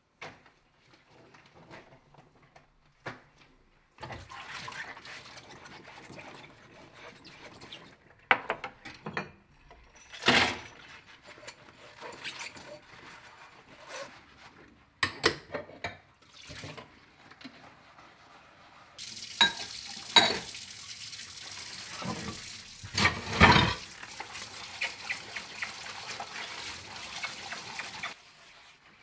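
Dishes being washed by hand at a kitchen sink: the tap runs into the sink while glasses and ceramic bowls clink and clatter against each other. The water runs hardest and steadily in the last third, stopping just before the end, and a few sharp clatters stand out.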